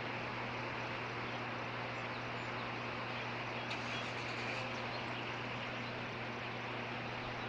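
Steady outdoor background noise from an osprey nest camera's microphone: an even hiss with a low, constant hum. A few faint, brief high sounds come near the middle.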